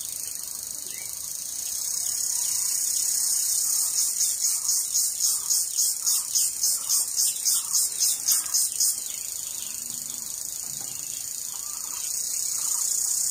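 High-pitched insect chorus: a steady shrill that, for several seconds in the middle, pulses rapidly, about five times a second.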